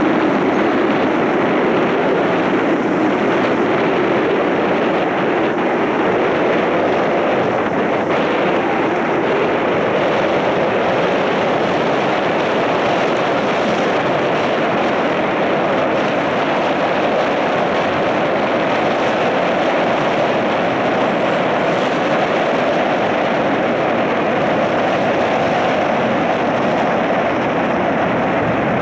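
Steady rushing noise on the deck of a moving river cruise boat: wind across the microphone over the drone of the boat and water.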